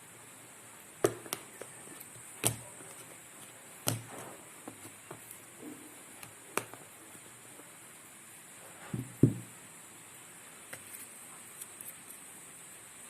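Hands handling a phone and its packaging: scattered clicks, taps and knocks, the loudest a pair of knocks about nine seconds in.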